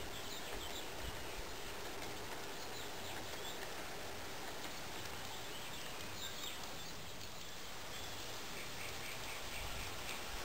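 Steady outdoor background noise with small birds chirping now and then, including a quick run of chirps near the end.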